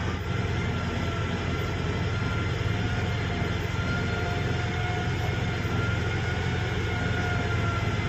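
Sany 135 excavator's diesel engine running steadily, heard from inside the operator's cab: a constant low drone with a faint steady whine over it.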